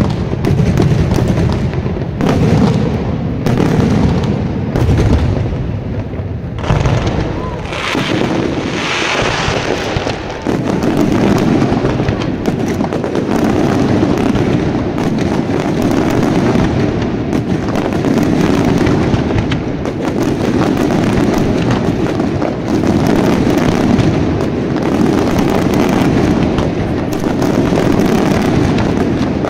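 Daytime aerial fireworks display. A rapid string of shell bursts comes for the first several seconds, then from about ten seconds in a dense, continuous barrage of bursts.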